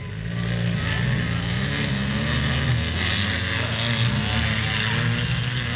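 Demolition derby car engines running and revving across a dirt track, a steady low drone whose pitch rises and falls.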